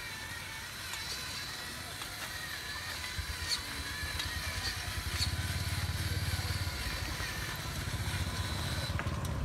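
Homemade RC truck's electric motor and gearing running as it drives. There is a wavering whine over a low rumble, and the rumble grows louder about three to five seconds in.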